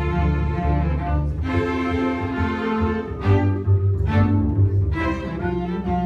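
String ensemble of violins, cello and double bass playing sustained bowed notes in several parts. The low bass line drops out for a couple of seconds midway and comes back strongly.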